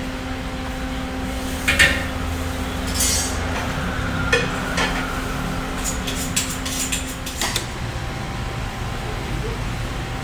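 Metal kitchen utensils clinking and clattering against steel: a few separate sharp clinks, then a quick run of clatter past the middle, over a steady hum of kitchen equipment that stops about seven and a half seconds in.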